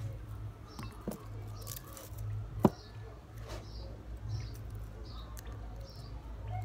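Fingers peeling papery garlic skins, with one sharp crack of skin about two and a half seconds in. Short high chirps repeat about once a second over a low steady hum.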